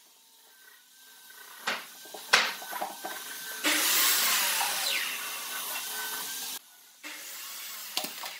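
Wooden pieces and metal clamps knocked together while being handled on a clamped pine panel: two sharp knocks, the louder one about two seconds in, and a few lighter taps. After that comes about three seconds of loud, steady hissing that cuts off suddenly, then another knock near the end.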